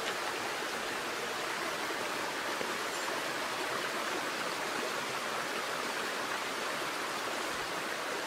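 Shallow, rocky stream flowing over stones: a steady, even rush of water.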